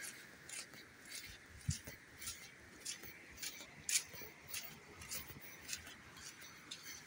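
Footsteps on a dirt and stone path: short light scuffs and clicks about twice a second over a faint steady hiss.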